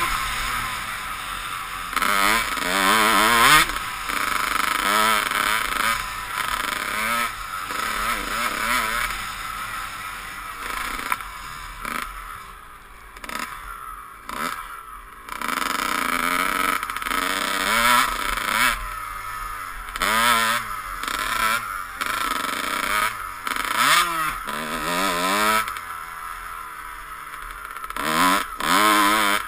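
Dirt bike engine revving up and down over and over while being ridden, its pitch climbing with each opening of the throttle and falling away as it eases off. About twelve seconds in it drops back to a low level for a few seconds, then picks up again.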